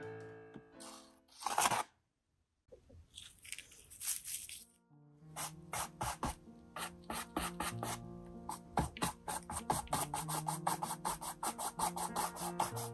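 A plastic gift card scraping acrylic paint across a canvas, cut off sharply about two seconds in. After a short gap, a 1-inch bristle paintbrush brushes thick acrylic paint over the canvas: a few soft strokes, then quick back-and-forth scrubbing strokes, about five a second, from about five seconds in. Soft background music plays underneath.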